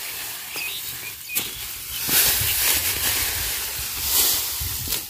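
Dry, cut rice straw rustling as sheaves are handled and pressed together into a bundle, louder from about two seconds in.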